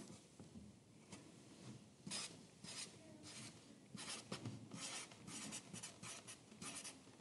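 Faint pencil writing on paper: a string of short, irregular scratching strokes.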